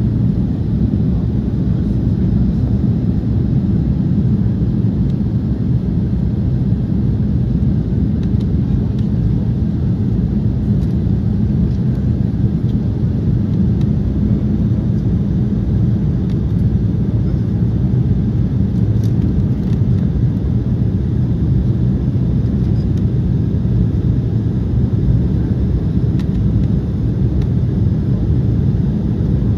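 Steady low cabin drone of an Embraer 190 airliner in flight, heard from inside the cabin: airflow noise and the hum of its GE CF34-10E turbofan engines, unchanging throughout.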